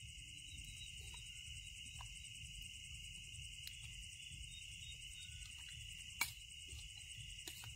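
Crickets trilling in a steady, unbroken night chorus, with a single sharp click about six seconds in.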